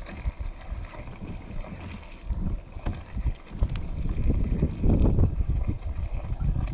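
Wind buffeting the microphone, an uneven low rumble that grows louder for a couple of seconds past the middle, with a few light clicks or knocks.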